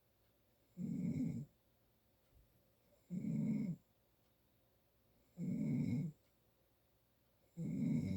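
A person snoring in sleep: four even snores a little over two seconds apart, each under a second long, with quiet gaps between. The sleeper puts the snoring down to allergies.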